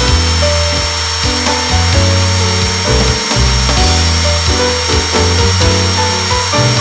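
Background music with a steady beat, over an electric motor running steadily with a high whine.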